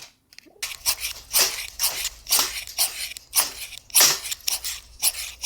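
Ferrocerium fire-starter rod scraped hard and fast with a striker, about three rasping strokes a second, to throw sparks onto tinder.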